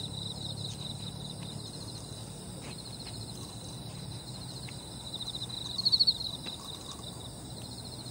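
Night insects such as crickets chirping in summer grass: a continuous high, rapidly pulsing trill, with a louder run of chirps about six seconds in.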